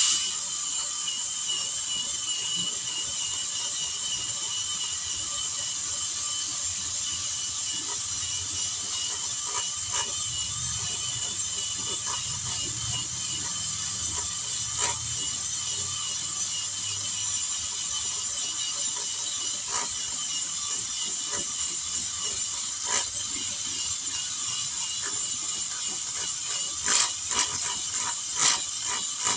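High-speed rotary power tool running with a steady high-pitched whine, worked on the inside of a car tire around a nail puncture to prepare it for a patch. Light scraping ticks run under it, and a few louder knocks come near the end.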